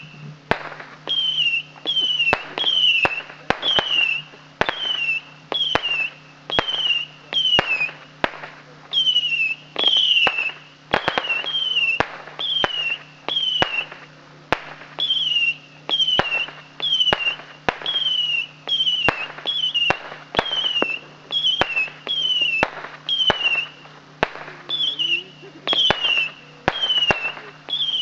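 Shogun 100 Shot Saturn Missile battery firing in a steady rapid string, about one and a half shots a second. Each shot is a short screaming whistle falling in pitch, with a sharp firecracker report.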